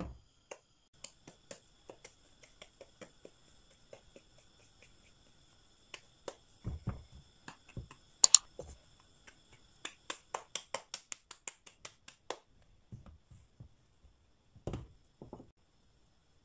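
Floured hands patting and pressing a ball of wheat dough between the palms to flatten it for stuffing: a string of soft pats and sharp slaps, quickening into a fast run past the middle, with one loud slap about halfway through.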